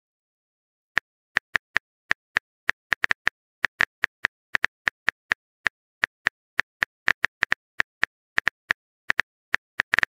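Smartphone keyboard typing sound effect: a rapid, uneven run of short tapping clicks, about five a second, starting about a second in, as a message is typed out.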